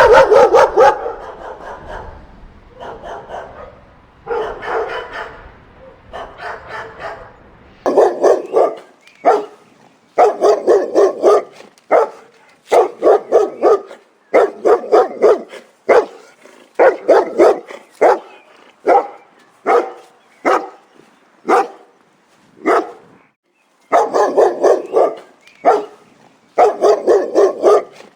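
Dogs barking in rapid volleys of several barks each, with short pauses between; softer, more echoing barks in the first few seconds, then loud, sharp barking.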